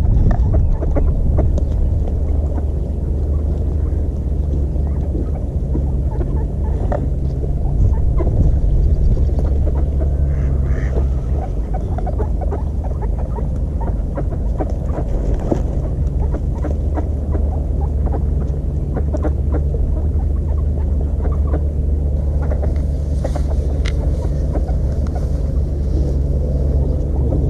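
Ducks and coots feeding on ice: many short pecking and tapping ticks, with an occasional duck call, over a steady low rumble.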